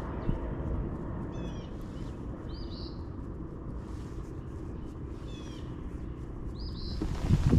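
Birds calling from the riverbank: a short chirping phrase repeated about every two seconds, with a different brief call twice, over a steady low outdoor rush. A louder low rumble swells near the end.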